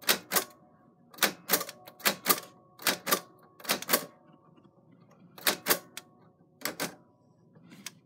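Typewriter keys striking one at a time, about fourteen sharp clacks in all, mostly in quick pairs with uneven pauses between them.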